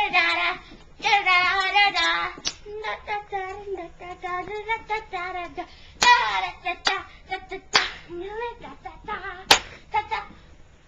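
A child singing unaccompanied in wavering phrases, with a few sharp claps between them.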